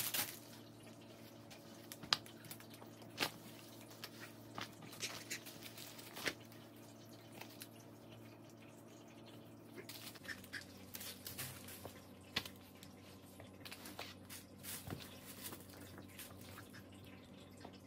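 Quiet handling of a ribbed knit sweater as it is unfolded and held up: faint soft rustles and a scattering of small clicks, over a steady low hum.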